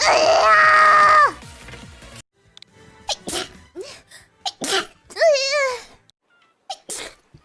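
A young woman sneezing again and again, short separate sneezes at uneven intervals, cut together one after another. At the start a loud, held, high-pitched vocal sound lasts about a second before it stops.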